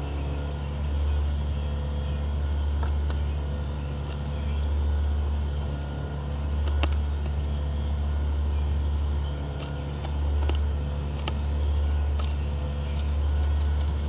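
A low rumble that swells and eases every two to three seconds, under scattered sharp little clicks and taps as a small bird pecks through sunflower seed shells on a plastic window feeder.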